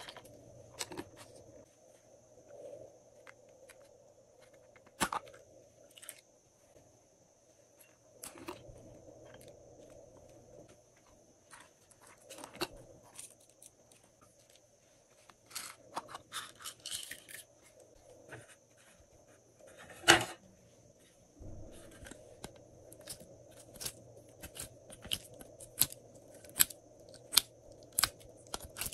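Hands handling plastic bottles and containers of slime toppings over a glass dish of glue: scattered sharp clicks and taps, one louder knock about twenty seconds in, and a quicker run of clicks near the end as a plastic tray of slime is tipped out.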